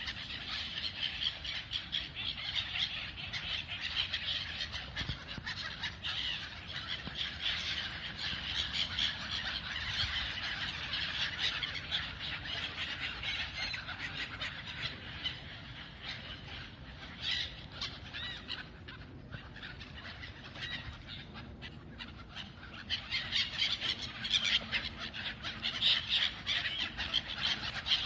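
A flock of birds squawking without pause as they fight over food, many calls overlapping. The calling thins out a little past the middle and grows louder again near the end.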